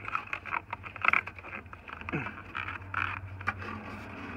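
Irregular clicking and scraping of plastic as hands tug at the GMC Yukon's light control module (turn-signal flasher) to work it loose, over a steady low hum.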